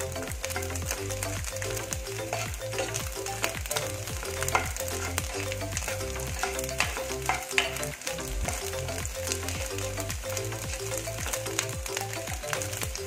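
Diced coconut pieces sizzling as they fry in ghee in a nonstick frying pan, with a wooden spatula stirring them and scraping across the pan in scattered clicks. Soft background music with a steady repeating pattern runs underneath.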